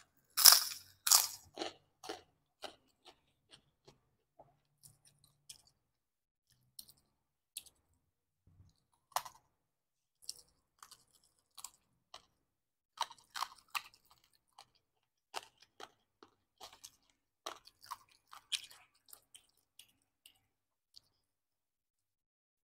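Close-miked chewing of a crunchy mouthful: loud crisp crunches in the first two seconds, then softer, scattered chewing clicks that pick up again in short clusters about halfway and later before trailing off.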